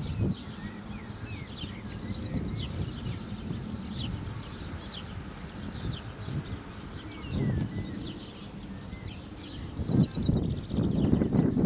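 Small songbirds chirping and singing in the surrounding trees, many short quick notes overlapping. Beneath them runs a low rumble that swells now and then, most strongly about ten seconds in.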